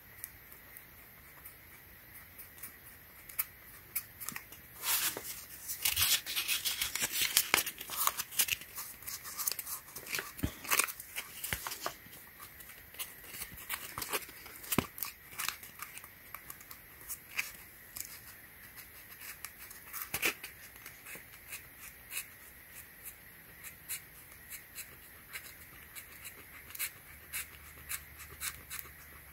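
Sandpaper rubbed by hand over the scuffed EVA foam of a Yeezy Foam Runner, water-sanding the scratches down: short, irregular scratchy strokes, densest and loudest about five to eight seconds in, then sparser.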